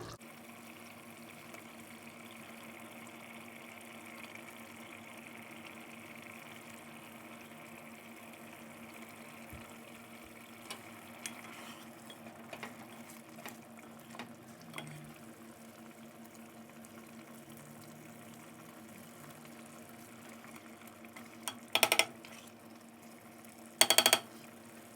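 A pot of Ethiopian red stew (wot) simmering gently on the stove, with a steady low hum and a few small ticks. Two short, loud clatters come near the end.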